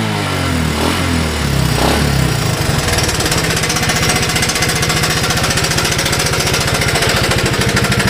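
1982 Honda ATC185's single-cylinder four-stroke engine settling down from a brief rev in the first couple of seconds, then idling nice and slow with an even putt. With the leaking carburetor replaced, it idles smoothly without popping.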